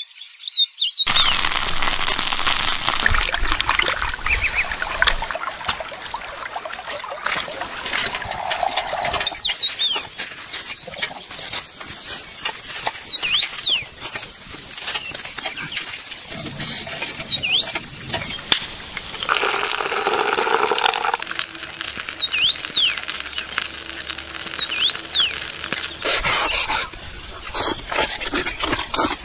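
A bird chirping again and again in short rising-and-falling calls over a steady rush of running stream water, with scattered clicks and clatter of cooking and eating.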